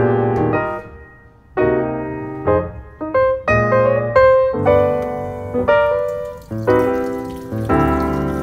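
Background piano music, one note or chord after another, with a short pause about a second in. About halfway through, a sink faucet starts running faintly under the music.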